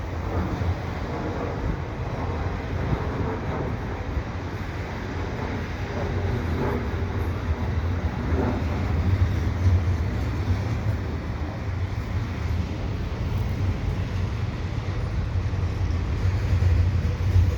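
Steady low rumble of a double-stack freight train rolling past, with wind buffeting the microphone.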